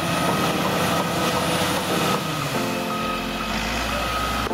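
A heavy machine's engine running, with a reversing alarm beeping on and off over it. The engine's pitch shifts about halfway through.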